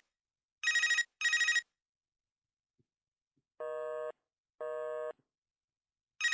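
Chicco bilingual toy telephone's electronic ring: two short trilling bursts in quick succession. A couple of faint clicks follow, then two steady half-second beeps, lower than the ring, and the ring starts again at the very end.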